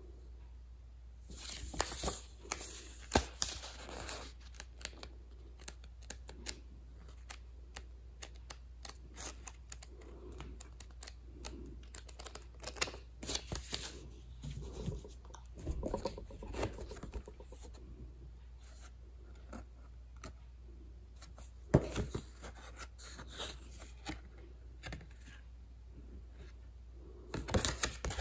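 Dashcam packaging being handled and opened: rustling and tearing of packing material with many small clicks and scrapes, louder in short spells near the start, about two-thirds of the way through, and near the end.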